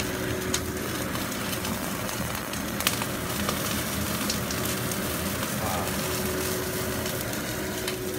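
Boneless chicken thigh steak sizzling in a hot frying pan, a steady hiss with scattered crackles and pops, under a faint steady hum.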